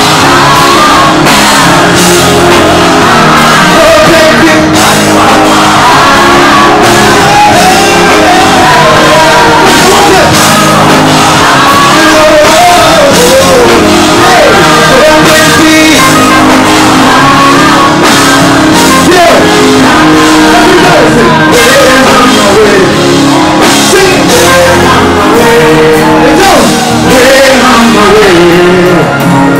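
Loud live concert music over a PA system: an amplified backing track with a voice singing and shouting over it.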